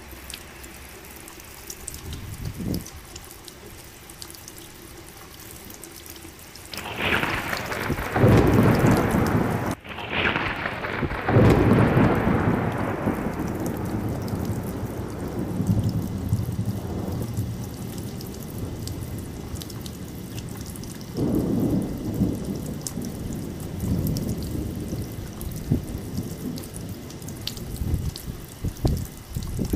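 Steady rain with thunder: a long, loud rumble of thunder builds about seven seconds in and rolls on for several seconds before slowly fading, and a second, weaker rumble comes about twenty seconds in.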